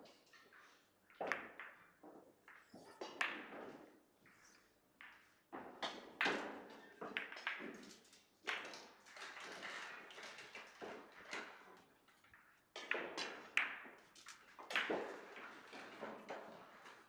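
Russian pyramid billiard balls clicking: cue tip on ball and balls knocking together, a dozen or so sharp irregular clicks, some from neighbouring tables, ringing briefly in a large hall.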